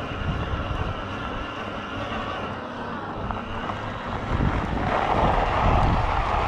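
Bafang M620 Ultra mid-drive e-bike motor whining steadily under throttle at about seven miles an hour, over low wind and tyre rumble. From about five seconds in, a louder even hiss takes over.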